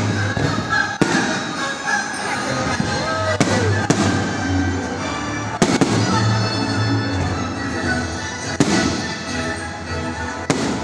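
Aerial firework shells bursting with sharp bangs, about six of them a second or two apart, over music playing throughout.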